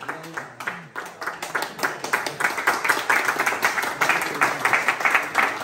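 A roomful of people clapping, the applause swelling and growing louder about two seconds in.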